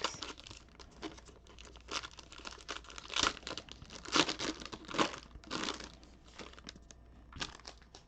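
Plastic wrapping crinkling and tearing in short, irregular crackles as a box of trading cards is opened, busiest in the middle and thinning out near the end.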